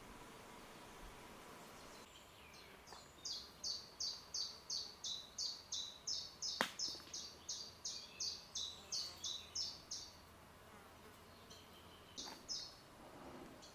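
A small creature's call: a quick, evenly spaced series of high chirps, about three a second for some seven seconds, then two more near the end. One sharp click cuts through about halfway.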